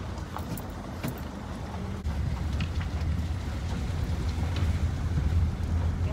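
Engine and road rumble heard from inside a van's cabin as it drives slowly, stepping up in loudness about two seconds in, with a few light knocks.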